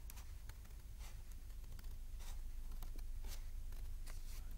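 Scissors cutting through thick folded paper: a series of short snips at uneven intervals.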